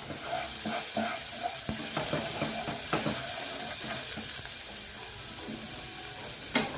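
Garlic, chili flakes and paprika sizzling in hot olive oil in a pot, a steady hiss, while a wooden spoon stirs and scrapes the bottom with many small knocks. There is one sharper knock near the end.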